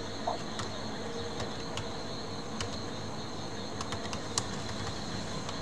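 Computer keyboard being typed on slowly, a few scattered key clicks at uneven spacing over a steady background hum.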